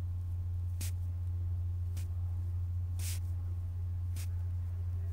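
Stylus strokes on an iPad screen as short arrows are drawn: four brief scratchy swipes about a second apart, over a steady low hum.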